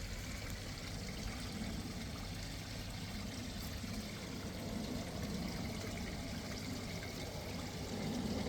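Water pouring steadily over a small garden waterfall into a pond, an even splashing rush.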